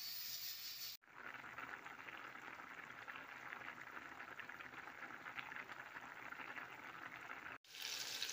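A pot of rice and pumpkin boiling: a steady, fairly faint bubbling made of many small pops. It is bracketed by two abrupt cuts, about a second in and near the end. After the second cut a brighter sizzle starts as sliced maxixe fries in a pan.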